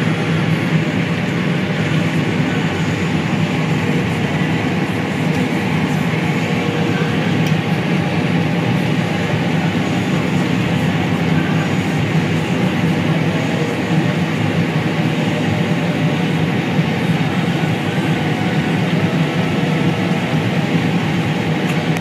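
Combine harvester running steadily while harvesting corn with its unloading auger engaged, a constant machinery drone heard from inside the cab.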